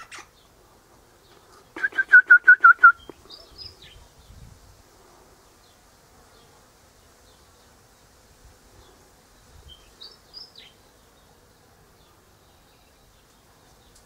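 Eastern rosella giving a quick run of about seven loud, sharp, evenly spaced notes about two seconds in, dropping slightly in pitch. A few faint, high, gliding whistles follow twice later on.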